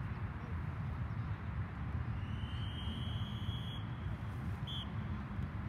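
Referee's whistle on a soccer field: one long blast of about a second and a half, then a short toot about a second later, over a steady low rumble.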